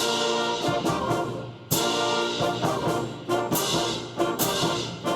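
School band playing a brass-led passage of accented chords. It comes in suddenly and loud at the start, with a second strong hit about 1.7 seconds in and punchy repeated accents after it.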